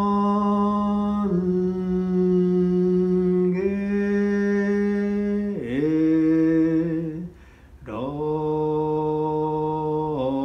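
A single voice chanting a Shin Buddhist sutra in long held notes, the pitch stepping down and back up every couple of seconds, with a short break for breath about seven seconds in.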